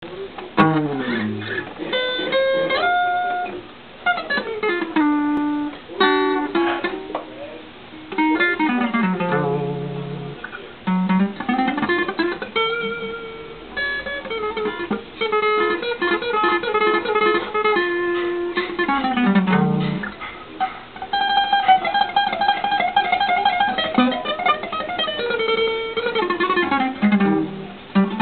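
Guitar solo: fast runs of single notes sweeping down and up the neck, broken by a few held notes.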